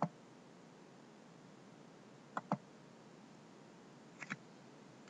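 Computer mouse button clicked three times, about two seconds apart, each a quick pair of ticks from press and release, over a faint steady hiss.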